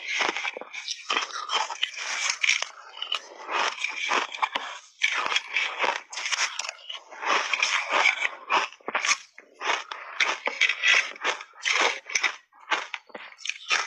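Close-up crunching and chewing of big bites of shaved ice coated in matcha and milk powder: dense runs of crisp crunches with short pauses between bites.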